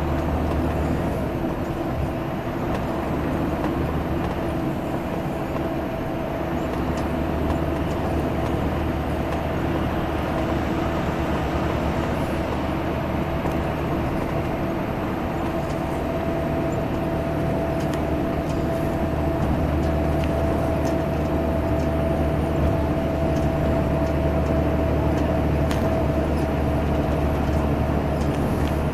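Diesel engine of Salutaris coach bus no. 13500 rumbling steadily on the highway: a low drone with a steady whine above it, a little louder about two-thirds of the way through.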